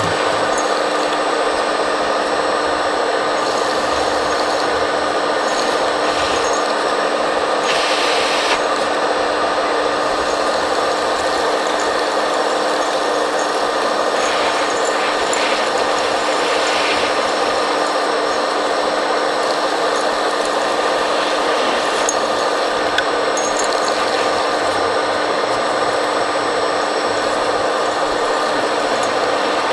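A 1:15 scale RC suction truck's vacuum fan running steadily with a constant hum and hiss, sucking soil up through its suction pipe. Short gritty rushes come through about eight seconds in and again around fifteen seconds in.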